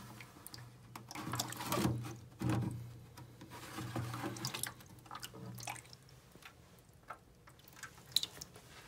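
Shallow water splashing and dripping in a plastic tank, stirred by pond loaches wriggling in it, in irregular bursts that are loudest in the first half and thin out to scattered small clicks and drips.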